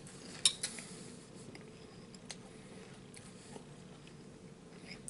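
A metal spoon clinking against a cereal bowl: two sharp clinks about half a second in, then a few faint taps.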